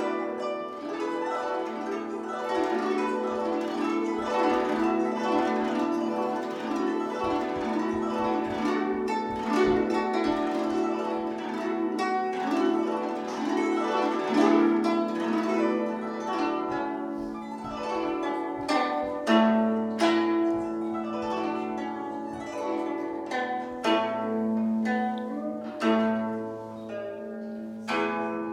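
Solo guzheng (Chinese plucked zither) being played. For about two-thirds of the time it is a fast, rippling stream of plucked notes, then it moves to slower, separate ringing notes with several loud accented plucks.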